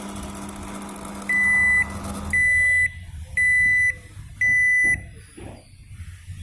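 LG MC-7688DP microwave oven running with a steady hum, then four loud single-pitch beeps about a second apart, the end-of-cycle signal; the running hum cuts off just after the first beep. A couple of soft knocks follow the last beep.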